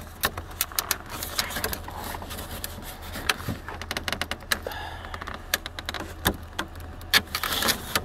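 Irregular clicks and rattles of the plastic upper grille and its retaining clips on a Chevrolet Impala as a gloved hand works the last clip loose. A steady low hum runs underneath.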